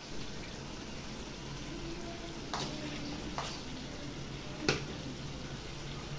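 Vegetable stew sizzling softly in an aluminium pot, with a wooden spatula knocking three times against the pot as a pat of butter is shaken off into it and stirred in.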